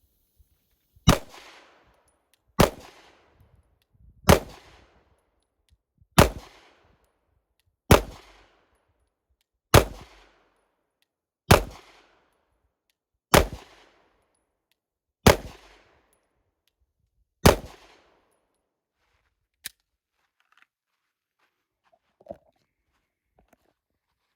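Walther PDP pistol firing ten shots at a slow, steady pace, about one every two seconds, each shot followed by a short echo. Near the end there is a faint click and a small knock.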